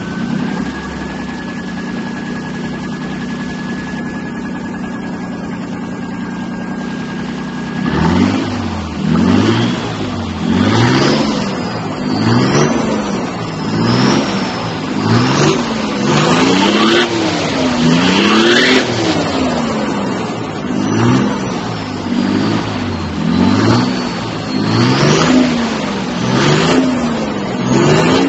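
Turbocharged Nissan RD28 straight-six diesel with a GT30 turbo and 3-inch exhaust, idling steadily with a high whistle, then revved up and down over and over from about eight seconds in, about once a second, a high turbo whistle rising and falling with each rev.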